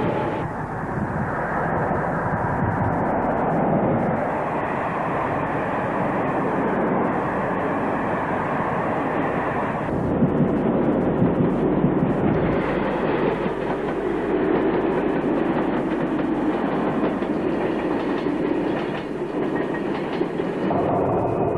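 A train running past: a steady rail rumble with wheel clatter on the track. The sound changes in character about ten seconds in and again near the end.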